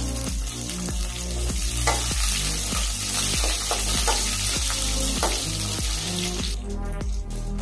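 Green chillies, garlic and curry leaves sizzling in hot oil in an aluminium kadai, stirred with a metal ladle that scrapes the pan now and then. The sizzle dies down near the end.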